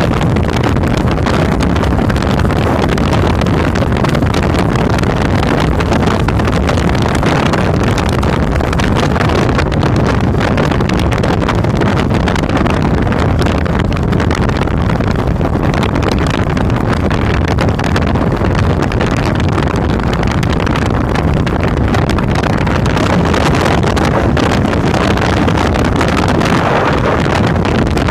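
A 2005 Suzuki Boulevard C50's 805 cc V-twin engine running steadily at road speed, mixed with wind noise on the mounted phone's microphone.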